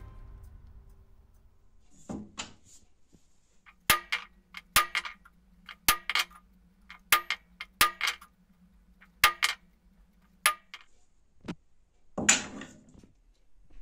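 A hand hammer strikes a punch on a stainless steel knife blank resting on a small anvil: seven sharp metallic taps about a second apart, each with a brief ring, marking out the blade outline. A duller, louder clunk comes near the end as a hammer is hung up.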